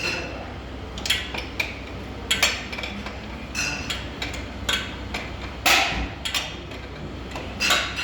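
Metal tools clinking and knocking against metal in irregular strikes, with a sharper, heavier knock about six seconds in.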